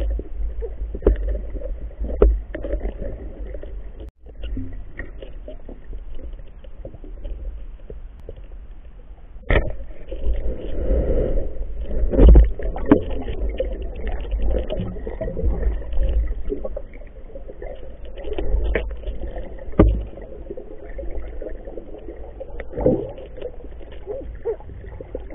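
Muffled underwater sound through a waterproof camera housing: a low rumble with many knocks and bumps and some water gurgling as the spearfisher moves along the riverbed.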